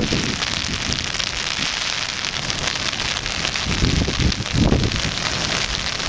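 Steady rain, an even fine hiss, with wind buffeting the microphone in low rumbling gusts about four seconds in.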